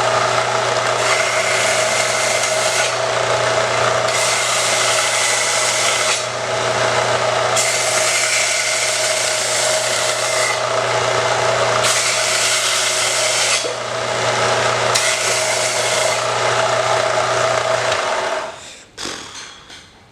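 Wood lathe running with its steady motor hum while a tool cuts into a spinning length of green, freshly cut wood, the scraping cut coming and going in passes of a few seconds. The motor shuts off and winds down near the end.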